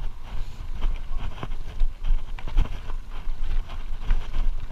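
Mountain bike riding fast down a rough dirt trail, with wind buffeting the microphone as a heavy, uneven rumble. Frequent short knocks and rattles come from the bike jolting over bumps.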